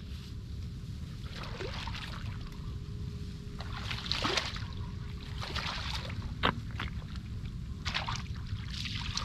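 Shallow muddy water splashing and sloshing in short bursts every second or two as hands work through it for fish, with one sharp tap about six and a half seconds in, over a steady low rumble.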